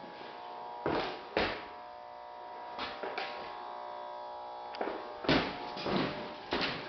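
Footsteps on a concrete basement floor, irregular and often in pairs about half a second apart, over a steady hum of several tones.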